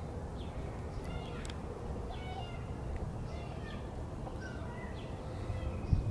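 Outdoor background: a steady low rumble with scattered faint, short high chirps from animals, and one light click about a second and a half in.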